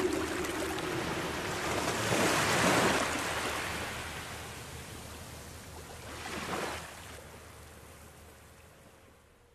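Ocean waves washing in, slowed and heavy with reverb, as the track ends: two swells, about two and a half and six and a half seconds in, over a faint held tone, fading away toward silence.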